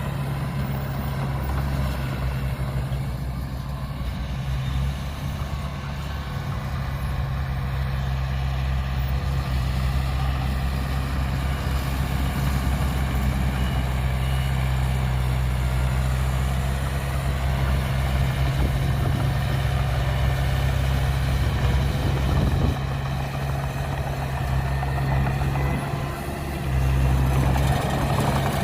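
Heavy diesel engine of a truck or bulldozer running steadily under varying load. It eases off about three quarters of the way through and picks up again near the end.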